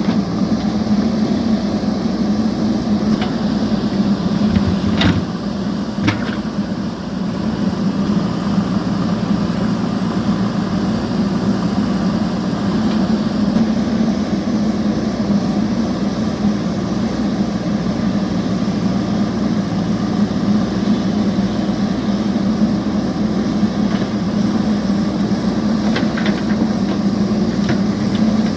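JCB backhoe loader's diesel engine running steadily under work, with a few sharp knocks about five and six seconds in and again near the end.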